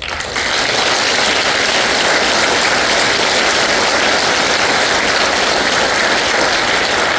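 Congregation applauding: dense, steady clapping that rises quickly at the start.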